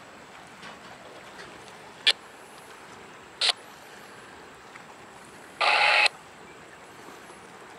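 Faint steady hiss broken by three short bursts of radio static: a click about two seconds in, a brief burst a little later, and a half-second burst near the end. The bursts sound like a two-way radio scanner squelching open and shut between transmissions.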